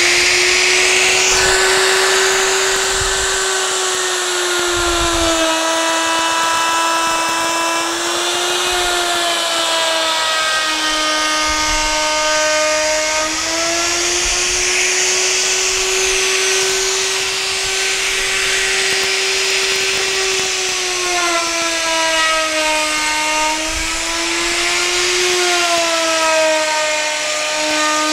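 Electric plunge router running at full speed while its bit cuts a shallow 2 mm decorative groove along a wooden board. The steady motor whine dips slightly in pitch a few times as the cut loads the motor.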